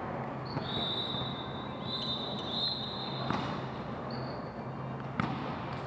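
Sneakers squeaking on a hardwood gym court, with two thuds of a volleyball hitting the floor about three and five seconds in, over a steady low hum.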